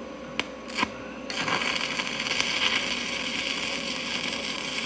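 Stick welding arc from a 7018 electrode on steel plate: two brief ticks as the rod is scratched to strike, then the arc catches a little over a second in and runs with a steady sizzle as the bead is laid.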